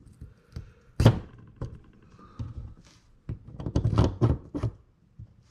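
Small reel parts clicking and tapping against each other and on a work surface as a baitcaster fishing reel is put back together, with one louder thunk about a second in and a quick run of clicks near the middle.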